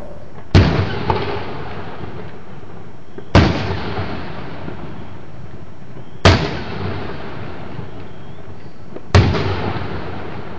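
Aerial firework shells bursting: four sharp bangs about three seconds apart, each trailing off in a short fading echo.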